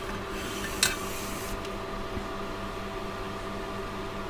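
Steady hum of a small electric fan running, drawing off solder fumes. A single sharp click comes about a second in, and a faint high hiss stops about a second and a half in.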